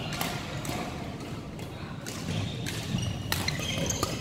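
Badminton rally: a few sharp racket-on-shuttlecock hits at uneven intervals, with short high shoe squeaks on the court floor, over the steady hum of a large hall.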